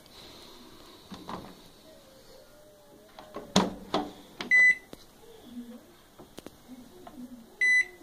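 Microwave oven control panel beeping twice, a short high beep about four and a half seconds in and another near the end, as its buttons are pressed to test it after the rotary encoder was cleaned. A few knocks from the panel being handled come just before the first beep.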